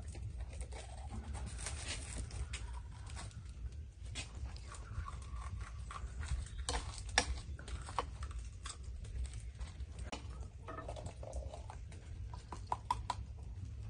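Quiet food-preparation sounds: scattered light clicks of a knife cutting peppers held in the hand, over a steady low rumble.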